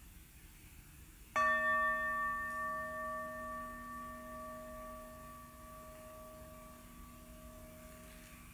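Meditation bell struck once, about a second and a half in, then ringing on with a slow, wavering fade: the bell that closes a guided meditation sitting.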